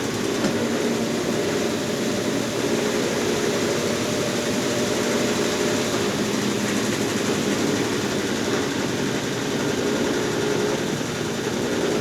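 Consul Facilite CWC10 10 kg washing machine running through its wash cycle with a load of bedding and towels, a steady, even mechanical hum with no pauses.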